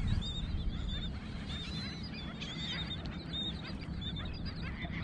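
Birds calling: many short, overlapping high calls over a low steady rumble.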